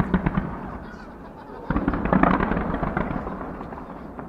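Fireworks: a string of rapid crackling pops that fades out in the first half second. About 1.7 s in a sudden loud boom comes, then dense crackle that slowly dies away.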